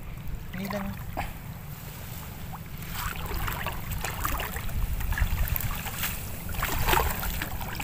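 Water splashing and dripping as a cast net is gathered and thrown in shallow sea water, the splashes growing busier after a few seconds, with the loudest one near the end. Wind rumbles on the microphone throughout.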